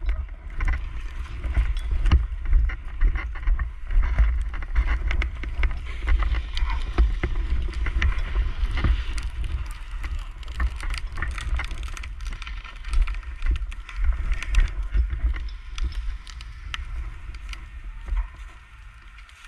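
Wind buffeting a helmet camera's microphone in an uneven low rumble, with irregular crackles and rustles from the burnt grass underfoot.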